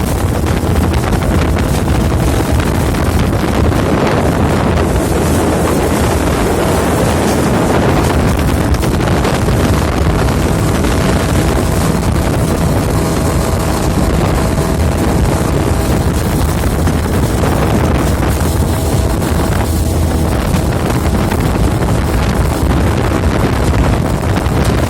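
10-horsepower boat motor running steadily as a small homemade boat moves along, with heavy wind buffeting on the microphone.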